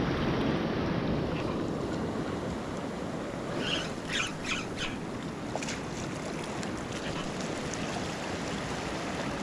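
Ocean surf washing steadily, with wind rumbling on the microphone. A few short high-pitched chirps come about four to five seconds in.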